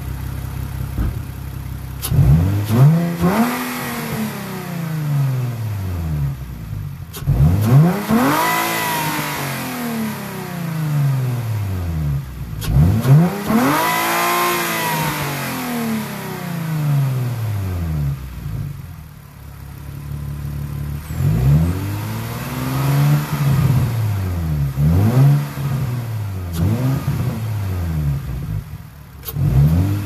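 Nissan 350Z's 3.5-litre V6 idling, then revved repeatedly: three long revs in the first half and a run of shorter, quicker blips in the second half, each rising and falling back to idle. The random misfire seems cured by cleaning an oily camshaft position sensor and its dirty connector.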